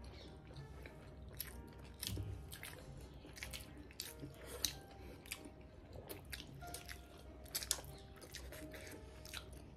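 Two people chewing steamed pork momos (dumplings), mouths open. The sound is an irregular run of short, wet smacks and clicks.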